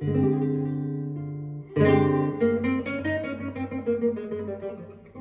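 Solo classical guitar being finger-played: a chord rings and fades, then about two seconds in a loud strummed chord opens a quick run of plucked notes that grows softer toward the end.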